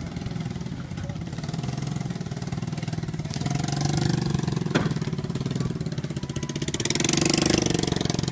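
A small engine running steadily with a fast even beat, swelling in level twice, with one sharp click about five seconds in.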